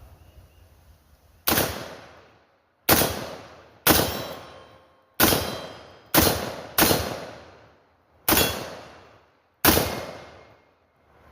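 Black Rain Ordnance AR-15 rifle firing eight single semi-automatic shots at an uneven pace, roughly one to one and a half seconds apart, each sharp crack followed by a fading echo across the range.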